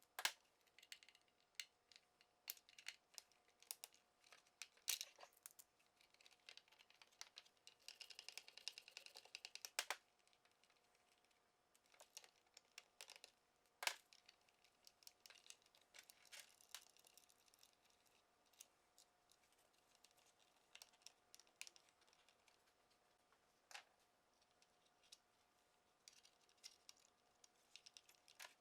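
Scattered small clicks, taps and rattles of hand tools and plastic mirror parts being handled on a workbench, with a denser rattling stretch about eight seconds in. A faint steady hum runs underneath.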